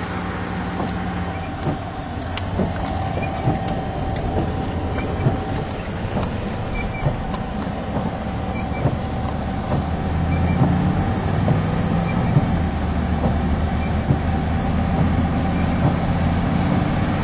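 Car engine and road noise while driving: a steady low hum that grows a little louder about ten seconds in, with scattered small clicks.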